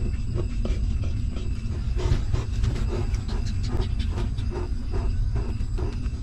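Newborn puppies suckling at their mother: rapid, irregular wet clicking and smacking that grows busier about two seconds in, over a steady low rumble.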